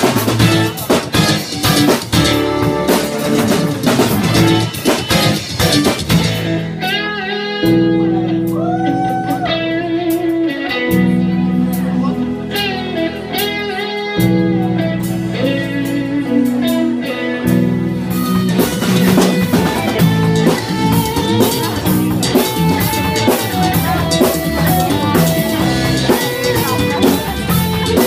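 Instrumental rock band playing electric guitar, bass guitar and drum kit. About six seconds in the drums drop out for a stretch of long held bass notes under bending guitar lines, and the full band with drums comes back about eighteen seconds in.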